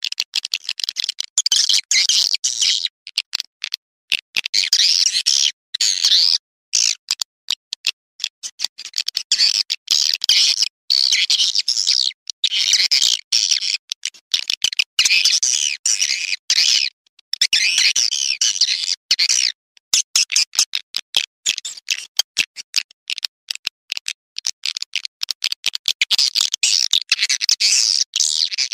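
Edited swiftlet lure-call recording: rapid, high twittering chirps of swiftlets in dense bursts broken by abrupt short gaps, thinning out for a few seconds past the middle.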